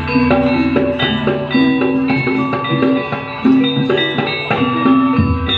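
Traditional ensemble music: struck tuned percussion playing quick, ringing notes over a low sustained tone, with drum.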